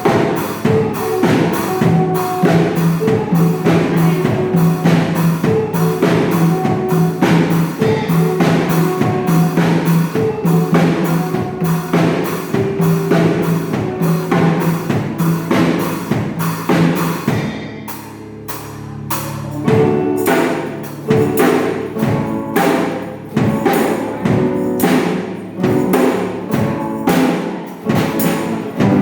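A young school pop band with a drum kit playing an instrumental passage of a Thai pop song: a steady drum beat over held bass and keyboard-like notes. About two-thirds of the way through, the drums stop for a couple of seconds under one held low note, then the beat comes back in.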